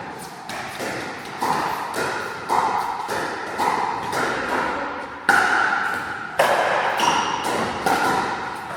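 Pickleball paddles striking the hard plastic ball in a rally, sharp pops every half second to a second, each with a ringing echo.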